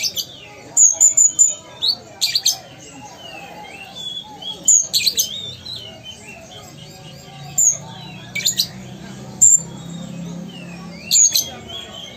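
Van Hasselt's sunbird (kolibri ninja) singing: short, sharp, high chirps and quick twittering bursts, scattered a second or more apart.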